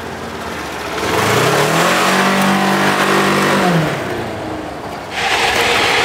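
Polaris Ranger XP side-by-side on Tweel airless tyres driving off: its engine rises in pitch as it speeds up, holds steady, then drops away after a couple of seconds. About a second before the end, a sudden loud steady rush of tyres rolling over gravel close up takes over.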